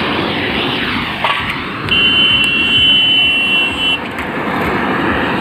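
Continuous vehicle and machinery noise. From about two seconds in, a high, steady two-note horn or buzzer sounds for about two seconds.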